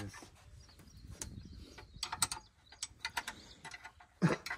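Scattered sharp metal clicks and clinks of a hand wrench working the bolts on a combine harvester's wheel hub, with a brief vocal sound near the end.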